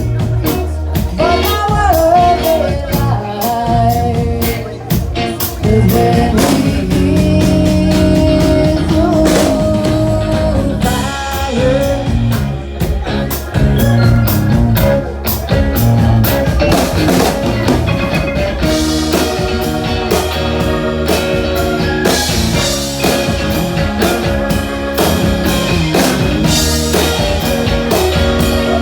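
Live rock-and-blues band playing, with a steady drum-kit beat, bass and electric guitar.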